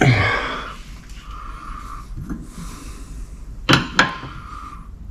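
A short breathy exhale at the start, then two sharp clinks of hand tools on metal about a third of a second apart near the end, during work on a car's front suspension.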